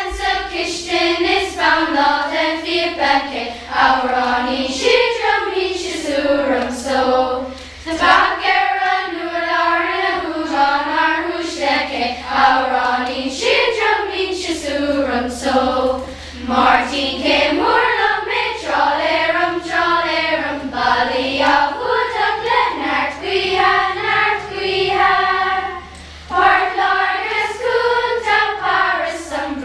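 Children's school choir singing a song together, with short pauses between phrases about 8 seconds in and again near the end.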